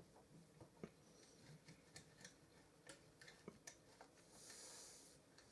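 Faint, scattered clicks and ticks of a knife cutting through crusty cornbread in a glass baking dish, the blade scraping and tapping on the glass. A brief soft hiss comes about four and a half seconds in.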